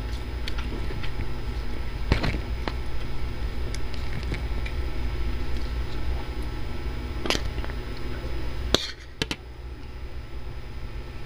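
Spoon and fork scraping and clinking on a ceramic plate of rice, with a few sharp clinks, over a steady low hum that drops away about nine seconds in.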